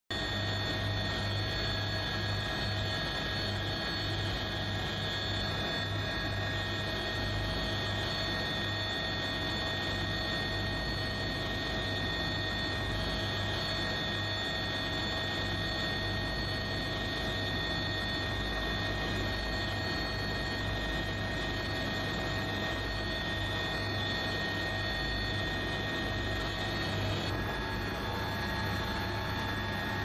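Helicopter cabin noise: steady engine and rotor drone with several high, steady whining tones. The tones shift slightly near the end.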